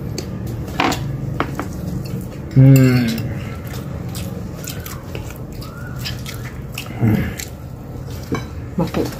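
People eating with their hands from glass bowls: chewing and mouth noises with scattered light clicks and clinks against the glass. About three seconds in there is a short voiced 'mm' with a falling pitch.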